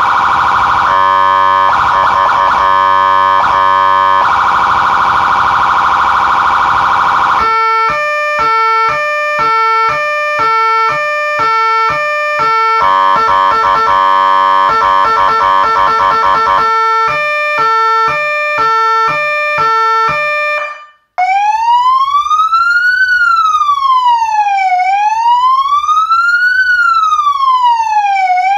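Electronic police siren from a Federal Signal AS320Dig siren amplifier and ES100C speaker stepping through its tones: first a steady harsh horn-like tone, then a fast alternating two-note pattern, and after a brief cut-off about 21 seconds in, a slow wail rising and falling about every three and a half seconds.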